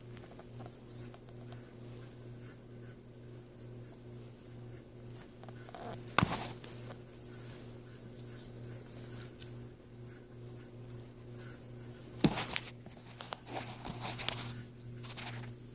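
Handling noise at the camera: a sharp click about six seconds in, then another click about twelve seconds in followed by a few seconds of rustling as the camera is picked up, over a steady low electrical hum.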